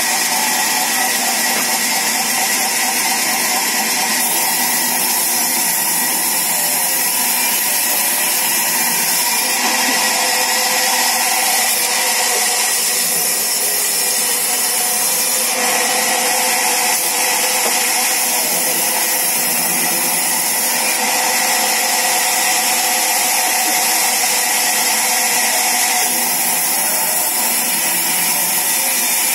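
Large vertical band saw running and cutting timber planks: a steady, loud, high hiss with faint steady tones underneath, unbroken throughout.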